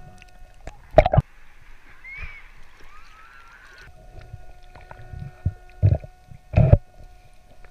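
Underwater sound picked up by a diver's camera: a steady faint hum, a stretch of hiss in the first half, and short loud clunks about a second in and twice near the end.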